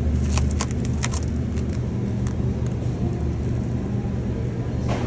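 Steady low machine hum, with several sharp clicks and crinkles in the first half and one more near the end, as plastic-wrapped beef roast packages are handled.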